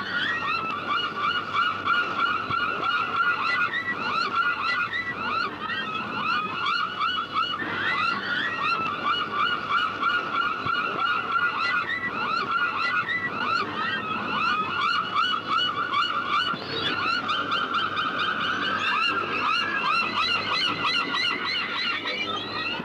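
A flock of gulls calling together: a dense, unbroken chatter of short, quickly repeated calls, several birds overlapping.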